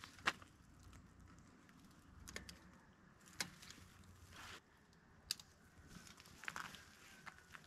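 Faint, scattered sharp clicks and snips of hand cutters freeing a fabric privacy screen from a chain-link fence, with the cloth rustling as it is pulled down.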